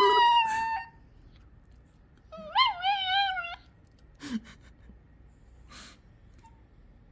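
Yorkshire terrier giving long, high-pitched whining cries: one trailing off about a second in, a second wavering one around the three-second mark, then a short snuffling sound.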